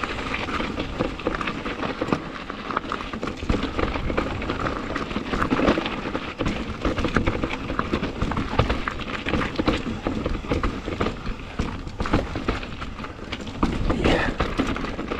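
Santa Cruz mountain bike clattering down a rough rock trail: tyres hammering over rock steps, with the frame and chain rattling in a dense run of quick knocks.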